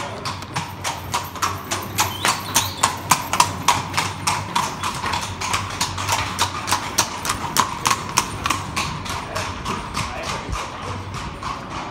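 Horse's hooves clip-clopping as a horse-drawn carriage comes up and passes, a quick even beat of about four or five strikes a second. It is loudest in the first half and grows fainter toward the end.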